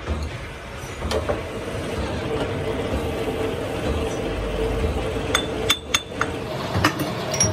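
Lathe chuck key working the jaws of a three-jaw chuck as they are tightened on a cast metal blank: sharp metallic clinks, several in the last two and a half seconds, over a steady machine hum.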